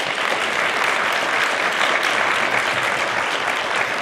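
An audience applauding: a steady, loud round of clapping.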